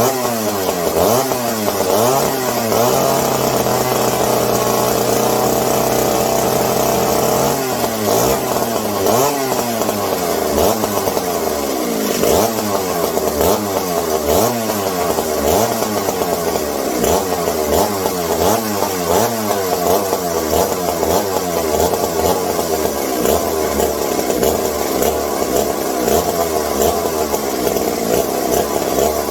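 Vintage McCulloch 740 two-stroke chainsaw engine running, its speed rising and falling over and over about once a second, with a few seconds of steadier speed near the start. The uneven running is what the owner puts down to carburettor problems.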